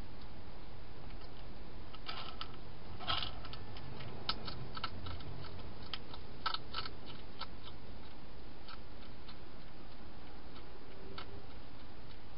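A hedgehog crunching dry food inside a plastic feeding box: irregular sharp clicks, thickest from about two to seven seconds in and sparser after, over a steady background hiss.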